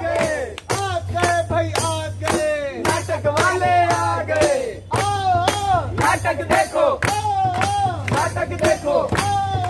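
Folk-style song sung by performers to a hand-held frame drum and hand claps, the strokes keeping a steady beat of about three a second.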